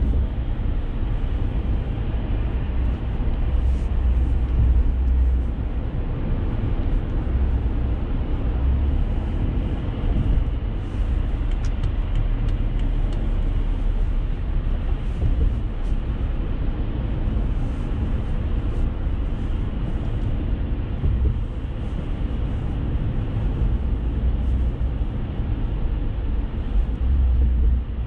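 Car driving in traffic, heard from inside the cabin: a steady low rumble of road and engine noise, with faint scattered ticks above it.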